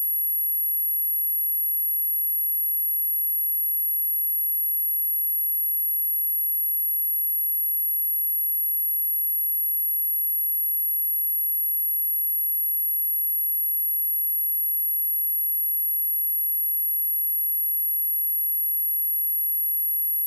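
A steady pure sine tone at 11436 Hz, a high-pitched whistle held at one pitch and level throughout: a speaker test tone, also used to shake water and dust out of a speaker.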